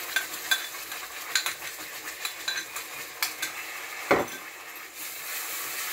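Wooden spatula scraping a thick paste out of a container into a pan of hot ghee and spices: a run of light clicks and scrapes, then a single thump about four seconds in. From about five seconds a steady sizzle as the paste fries in the ghee.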